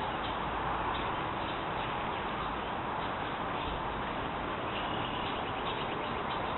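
A steady hiss, with faint high chirps of baby birds coming in about five seconds in.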